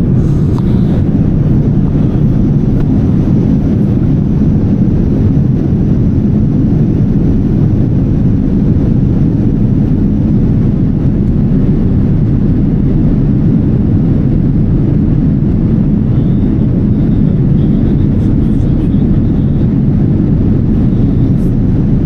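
Boeing 787 Dreamliner cabin noise in flight: the steady, deep rushing hum of the engines and airflow, heard from a passenger seat.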